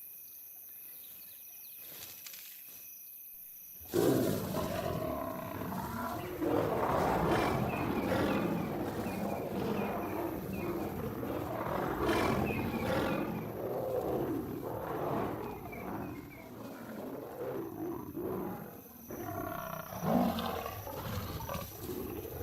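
Faint insects chirring for about four seconds, then lions suddenly break into loud, continuous roaring as a nomad male lion charges two lionesses in a fight.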